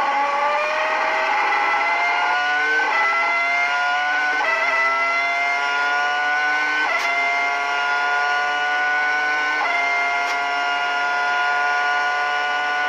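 Ferrari 3.0-litre V10 Formula 1 engine at full throttle, its high-pitched scream climbing in each gear and dropping sharply at four quick upshifts. The later gears climb more slowly as the car gains speed.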